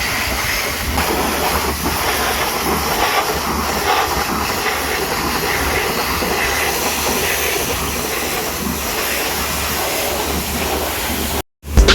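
High-pressure washer jet spraying water onto a truck: a steady, loud hiss that cuts off suddenly near the end.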